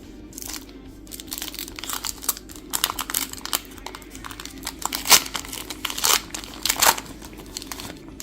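Foil wrapper of a Pokémon trading-card booster pack crinkling and being torn open, in a run of irregular sharp crackles with the loudest rips near the middle and toward the end.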